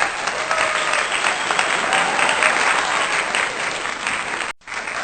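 A crowd clapping and cheering, dense and steady. It breaks off for an instant about four and a half seconds in and starts again, like a repeated sound clip.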